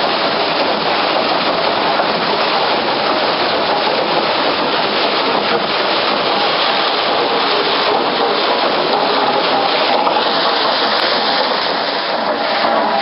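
A loud, steady rushing noise with no clear rhythm.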